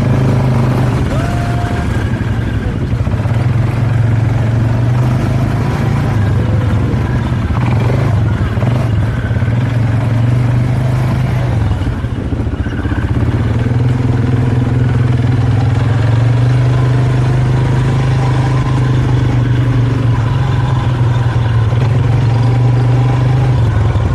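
Motor vehicle engine running steadily with a constant low hum, with faint voices in the background.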